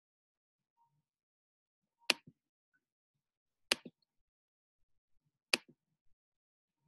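Three sharp computer mouse clicks, a little under two seconds apart, each followed closely by a fainter tick.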